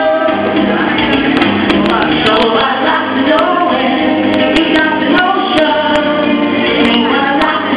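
Live music from a singer and guitarist: a woman sings into a microphone over guitar accompaniment, amplified through PA speakers.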